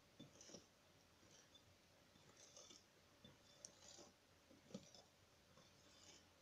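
Faint, irregular clicks and light scrapes of a wire whisk against a glass bowl as flour is slowly stirred into cake batter by hand.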